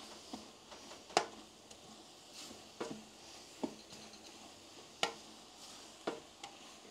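Long wooden spoon stirring frying sofrito in a large aluminium stockpot, knocking and scraping against the pot several times at irregular intervals, the sharpest about a second in and near five seconds, over a faint sizzle.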